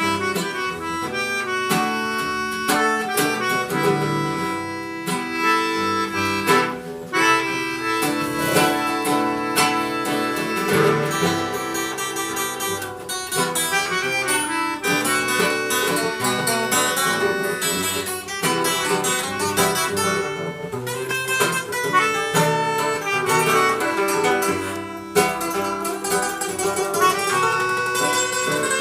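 Instrumental music led by plucked string instruments: acoustic guitars playing a lively, continuous passage with quick strummed and picked notes.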